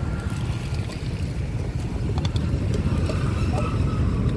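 Steady low rumble of wind buffeting the microphone outdoors by open water, with a few faint clicks partway through.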